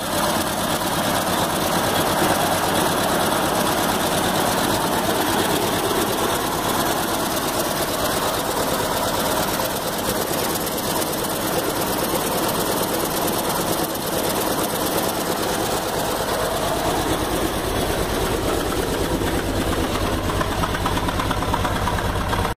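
1965 Bedford J5L truck's six-cylinder petrol engine running at a steady idle, which the owner reckons is missing on one cylinder from a sticky valve or a faulty spark plug lead. The exhaust note grows deeper and stronger near the end.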